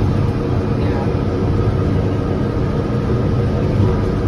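Steady rumble and hum of a Morgantown Personal Rapid Transit pod, a rubber-tyred electric car, running along its concrete guideway, heard from inside the cabin.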